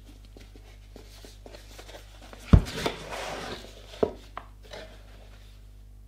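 A cardboard box being handled and opened by hand: light taps, then a sharp knock about two and a half seconds in, followed by about a second of cardboard scraping and rustling, and two smaller knocks shortly after.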